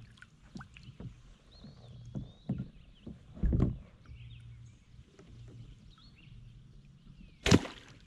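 Paddle and gear being handled on a Nucanoe Frontier kayak: scattered knocks, and a heavy thump about three and a half seconds in as the paddle is laid down across the boat. A single sharp, loud smack comes near the end.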